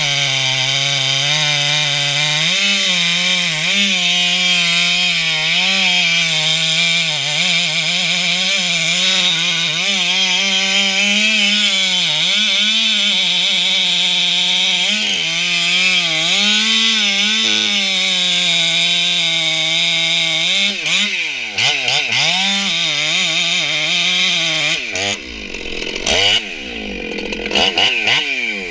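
Ported, modified Stihl MS 461 two-stroke chainsaw cutting deep into the base of a tree at full throttle, its engine pitch wavering as the load changes. About 21 seconds in it comes out of the cut, and the pitch swings sharply up and down as the throttle is blipped.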